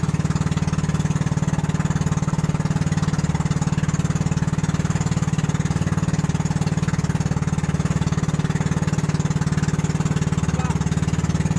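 Small boat's engine running steadily under way, with a fast even pulsing and no change in speed.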